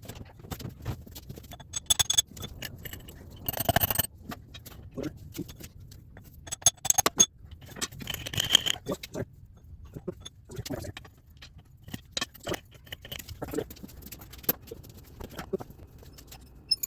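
Metal hand tools and transaxle parts clinking, tapping and scraping during disassembly: a string of small knocks and clicks, with a few louder ringing metal strikes about 2, 4, 7 and 8.5 seconds in.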